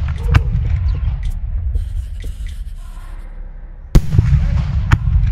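Fireworks going off: a sharp bang shortly after the start, then a louder bang about four seconds in, followed by a low rumble and another crack about a second later.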